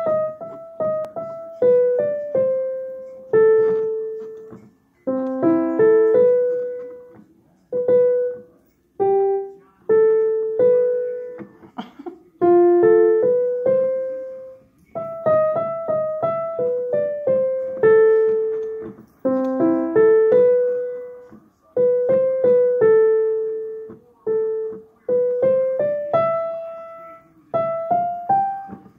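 Casio digital piano played with both hands: a melody over chords in short phrases, each separated by a brief pause. The notes ring and fade, and an early phrase returns about halfway through.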